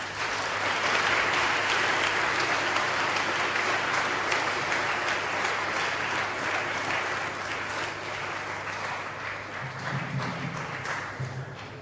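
A hall full of students applauding, a dense even clatter of many hands clapping. It is loudest in the first few seconds and tapers slightly toward the end.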